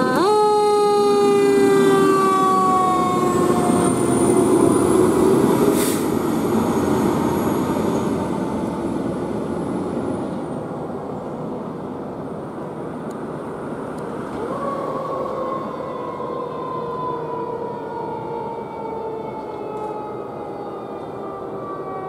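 Fire engine siren pulling out on an emergency call: it jumps up in pitch and then slowly winds down over about ten seconds, then whoops up again and winds down once more, fading as the truck drives away. The truck's diesel engine runs under it, loudest as it pulls out.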